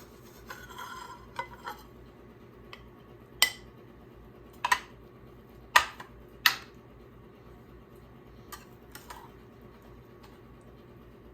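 Metal serving utensil scraping and clinking against a casserole baking dish while a portion is lifted out: a short scrape about a second in, then four sharp clinks over the next few seconds and a couple of lighter taps after them.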